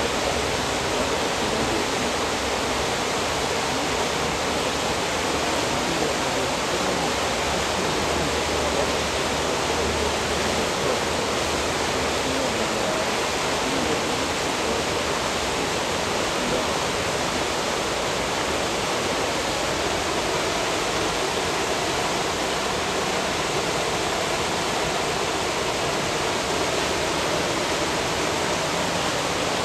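Turbulent water rushing steadily as an even hiss, with no distinct splashes or knocks.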